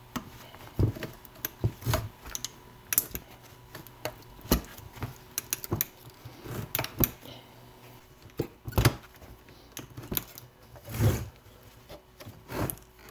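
Grey plastic cell holder being pried and pulled off a pack of A123 26650 lithium iron phosphate cells: irregular plastic clicks, creaks and knocks, a dozen or so, the loudest about nine seconds in.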